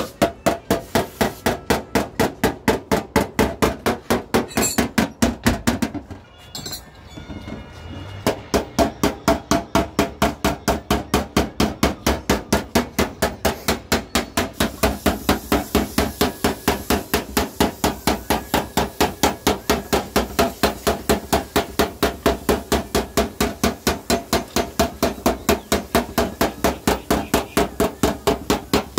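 Rapid, evenly spaced metallic knocking, about four knocks a second, from the car's engine bay, weakening briefly about six seconds in and then picking up again.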